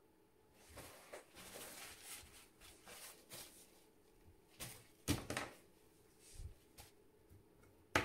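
Faint handling sounds of painting tools on a table: soft rustling for the first few seconds, then a few light knocks, the sharpest about five seconds in and another near the end.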